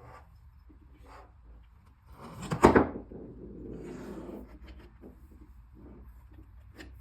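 Hands unpacking a box of tapware: light rustling and small knocks, with one loud scraping thump about two and a half seconds in.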